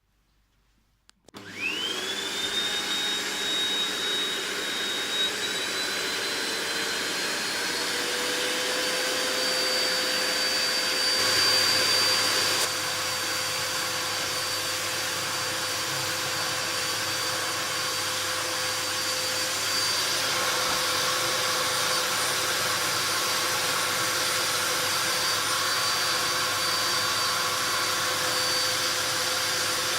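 Amstrad VC3025 1600-watt bagless cyclonic cylinder vacuum cleaner switched on about a second and a half in: the motor spins up with a quickly rising whine, then runs steadily with a high whine over rushing air, the pitch creeping slightly higher over the next several seconds. It is a little louder for a moment around eleven to twelve seconds in.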